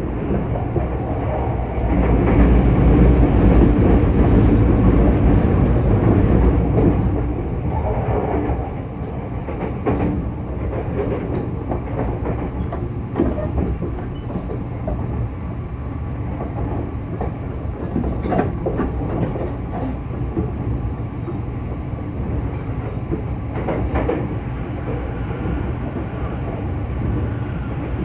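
Running noise of an E257 series 0 electric train at speed, heard inside the carriage against the window glass: a steady low rumble of wheels on rails with scattered clicks over rail joints. The rumble swells louder for several seconds shortly after the start, then settles back.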